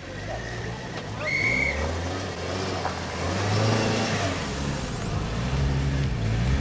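Off-road vehicle engine revving through mud, its pitch rising and falling repeatedly as the throttle is worked.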